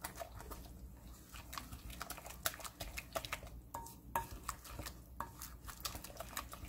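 Wooden spoon stirring a thick, wet red-pepper seasoning paste in a glass mixing bowl, faint, with many irregular light clicks and knocks as the spoon works through the paste.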